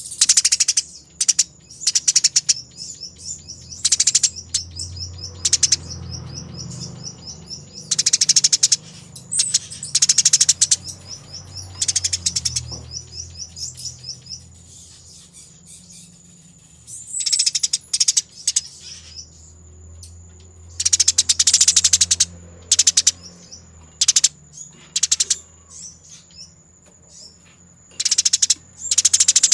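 Sparrows in fighting mode giving fast, dense chattering calls in repeated bursts of a second or two, with short gaps between. A thin steady high whine runs underneath.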